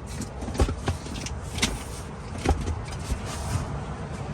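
A few short, light knocks and clicks as the rear seat cushion is handled and fitted back into the car, over a low steady background rumble.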